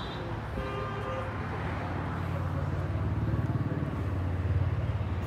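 A motor vehicle engine running, a steady low hum that grows louder in the second half.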